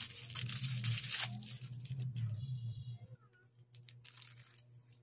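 Crinkling and rustling of clear plastic packaging being handled, loudest about a second in, over a low hum that stops about three seconds in; after that only a few light clicks.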